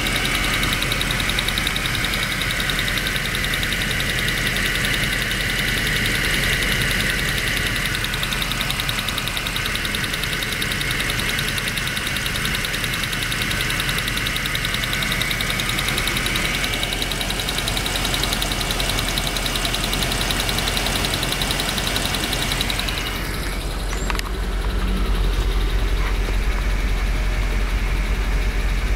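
1999 Land Rover Discovery II engine running with a loud, fast clicking/ticking like a stopwatch or a card in bicycle spokes. The owner says it is not lifter noise and suspects a switch or valve on the upper intake manifold. About 23 seconds in, the sound changes and the high clicking becomes fainter.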